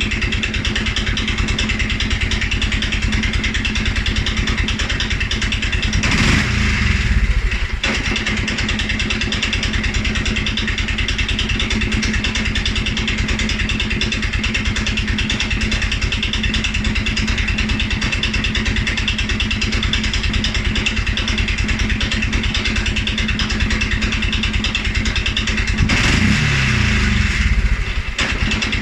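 2011 Polaris Sportsman 550 XP's single-cylinder four-stroke engine idling, blipped twice with short revs about six seconds in and near the end, the revs falling back to idle. The low, rough idle and the stumble after revving are the fault the owner is chasing, with fuel pressure, EFI sensors and valve clearances already checked good.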